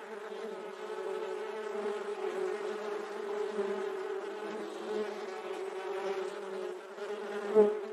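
Steady insect buzzing, bee-like, holding one pitch throughout, with a brief louder swell near the end.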